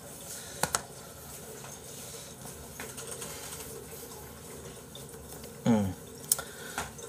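Quiet room noise with two sharp clicks a little under a second in, a short voice sound near the end, and another click soon after.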